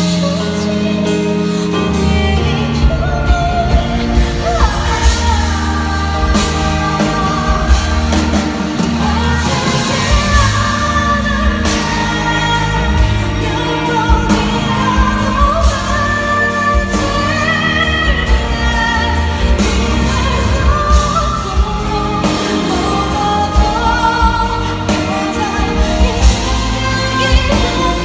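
Live pop ballad performance: a woman's lead vocal over a full band, with the drums coming in on a steady beat about two seconds in.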